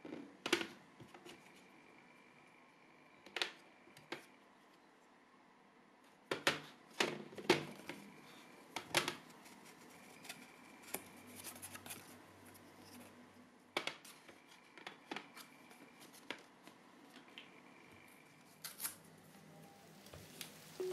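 Hand-crafting sounds of air-dry clay figures being shaped: scattered soft taps and sharp clicks of clay, a paper card and a small sculpting tool being handled on a tray, bunched together about a third of the way in.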